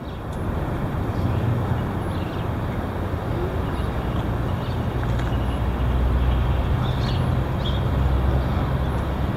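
Heavy wind blowing against the microphone: a deep rumble under a steady rushing noise, building over the first second or so and then holding loud.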